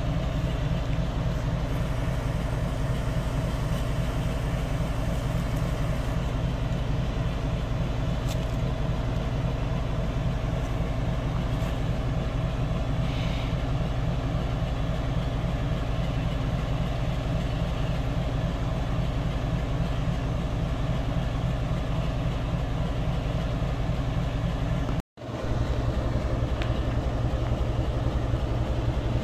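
GE WDG-4G diesel-electric locomotive's 12-cylinder engine idling with a steady low hum. The sound cuts out for a moment about 25 seconds in, then resumes unchanged.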